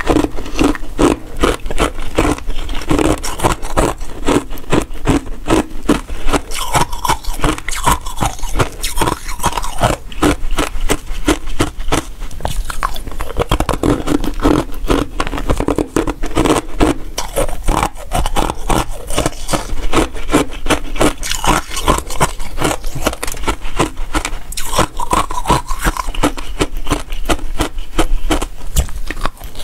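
Ice pieces frozen with basil seeds scraping and clicking against one another and the bowl as fingers pick through them: a dense, continuous run of crackly clicks and scrapes.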